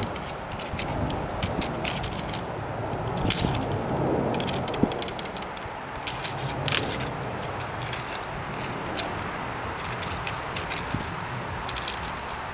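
Pinwheel being batted by a cat: irregular light clicks and crackles, with a few louder snaps.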